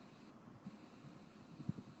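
Faint steady hiss heard through a Ring doorbell camera's microphone, with two soft low thumps.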